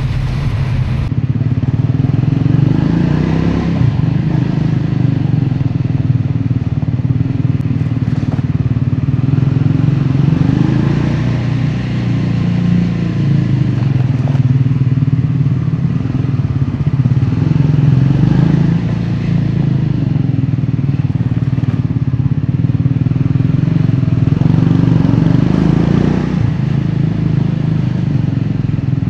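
Triumph Scrambler 400X's single-cylinder engine and exhaust under way, the revs rising and falling several times as the bike accelerates and shifts.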